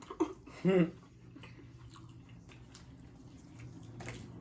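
A person chewing pizza close to the microphone, with soft wet mouth clicks and a sharper click near the end.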